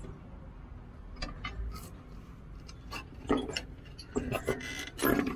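Scattered sharp metallic clicks and clinks, with a short run of them about four seconds in, from a socket wrench with a long extension working bolts on a truck lift axle's air-spring (air balloon) mounting.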